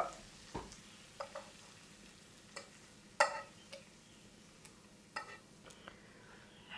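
A fork scraping and tapping fried onions and bacon out of a frying pan into a baking dish of sliced potatoes: a scatter of short scrapes and clicks, the loudest about three seconds in.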